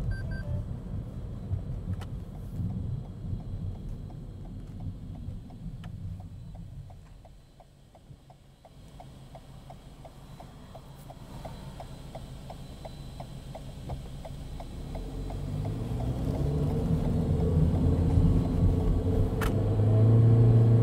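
Inside the cabin of a 2019 Toyota Corolla Hatchback, the road and engine rumble fades away as the car slows almost to a stop. A regular light ticking follows, about three ticks a second, for several seconds. Then the engine's rising tone and the road rumble build steadily as the car pulls away and accelerates.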